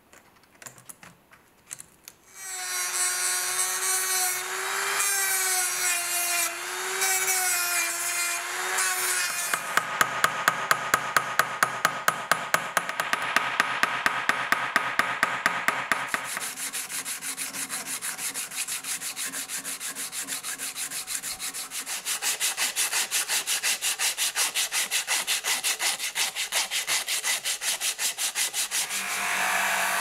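Ash-wood knife handle scales pressed down onto the pins with a long, wavering squeak. Then a hammer peens the pins over a small anvil: hard, ringing metal taps about three or four a second, followed by lighter, quicker taps. A buffing wheel starts running just before the end.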